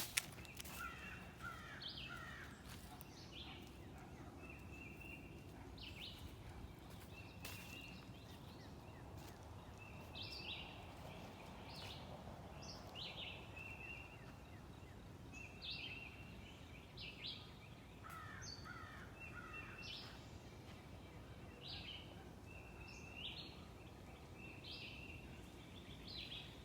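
A songbird singing over and over, a short high phrase every second or two, over steady low background noise. A sharp click sounds right at the start.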